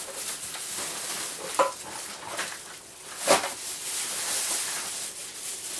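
Spice jars and packets being rummaged through in a wire pull-out kitchen drawer: a steady rustle, a short clink about a second and a half in, and a louder knock about three seconds in.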